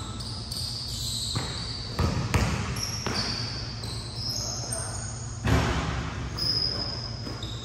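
Basketball bouncing on a court, a few sharp thuds spread out, with short high squeaks throughout and faint voices in the background.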